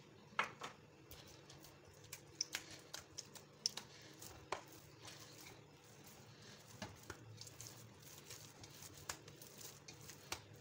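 Hands kneading freshly oiled pizza dough in a stainless steel bowl: faint, irregular sticky clicks and slaps of the dough, the sharpest in the first half.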